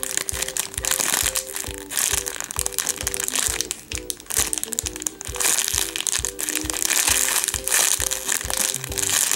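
Background music with a steady beat, over the crinkling of a clear plastic bag as the foam squishy toy inside it is squeezed.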